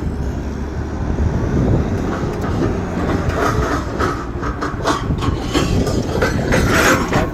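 A heavy vehicle running with a steady low rumble, with rattling and clanking knocks that grow busier from about three seconds in.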